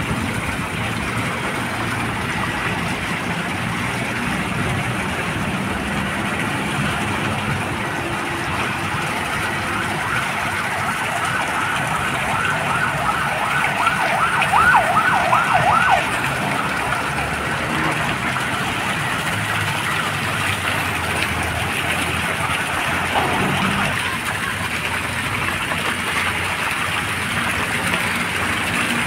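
Steady splashing of decorative fountain jets, with an emergency-vehicle siren wailing rapidly up and down for several seconds in the middle, loudest just before it stops.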